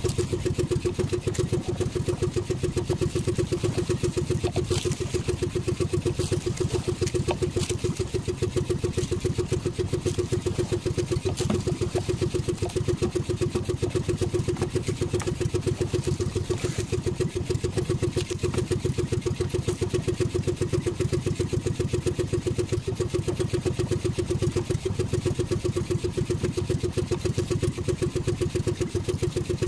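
Small outrigger fishing boat's motor running steadily with a fast, even pulse, unchanging throughout.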